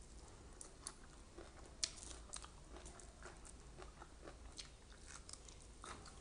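A person chewing raw leafy greens: faint, irregular crunches and mouth clicks, with a sharper crunch about two seconds in.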